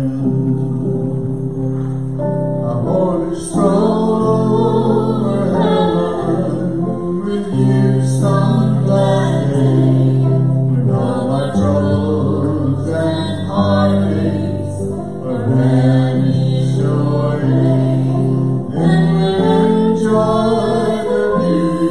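Live gospel band playing a song, with electric and acoustic guitars over a low bass line that changes note every second or two, and singing voices on top.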